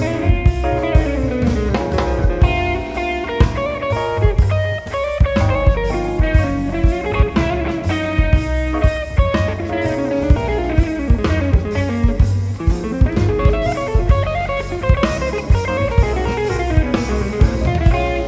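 A jazz band playing an instrumental passage without singing. Guitar stands out over a drum kit keeping a steady beat, with double bass and piano.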